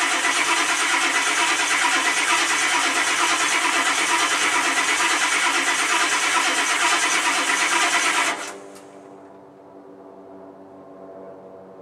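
Starter cranking the cold 7.3-litre IDI diesel of a 1991 Ford F-250, cutting off abruptly about eight seconds in without the engine catching: a failed cold start. A faint steady hum is left afterwards.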